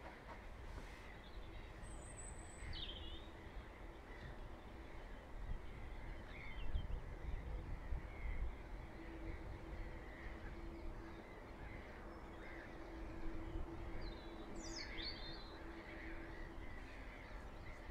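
Outdoor ambience: scattered short bird calls and chirps over a constant low rumble, with a busier flurry of calls near the end. A faint steady hum runs through the middle.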